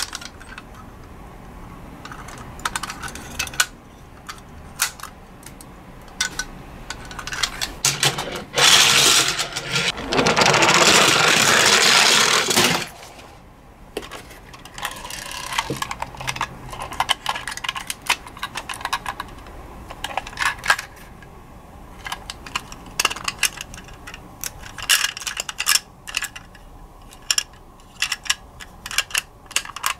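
Small plastic toy ambulances being handled: scattered clicks, taps and rattles of plastic parts and doors knocking together. About nine seconds in there is a loud scraping rush lasting about four seconds.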